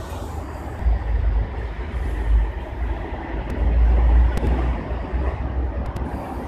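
Low, uneven outdoor rumble that swells several times, strongest about a second in and around four seconds in, with a few faint ticks.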